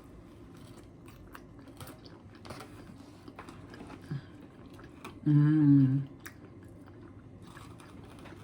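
A person biting and chewing pizza close to the microphone, with soft wet clicks of the mouth throughout. About five seconds in comes a brief, louder hummed "mmm" from the eater.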